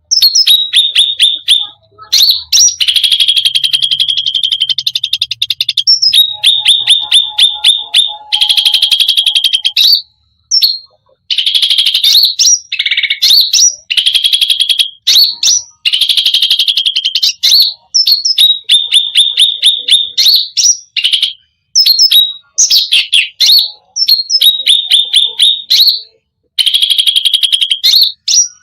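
Cucak rante songbird singing loudly and almost without pause: long runs of rapid, repeated chirps that drop in pitch, mixed with trills and mimicked phrases from other birds' songs (its 'isian').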